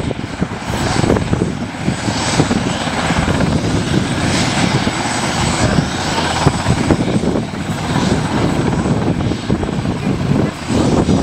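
Twin-turbine CHC Scotia Puma helicopter taxiing on the ground with its rotors turning: a steady high turbine whine over the rapid chop of the main rotor.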